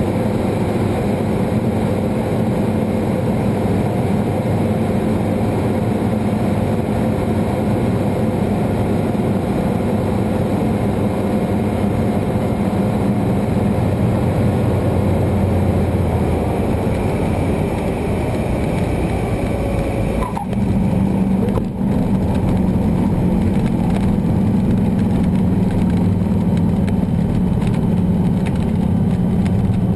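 Cessna 210 Turbo's turbocharged six-cylinder engine and propeller droning steadily, heard inside the cabin. About two-thirds of the way in, the level dips briefly and the tone of the drone shifts.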